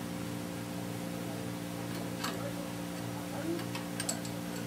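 Hand ratchet clicking in a few separate strokes as it turns a mounting bolt on a new oil pump fitted to a bare Ford 302 V8 block, over a steady low hum.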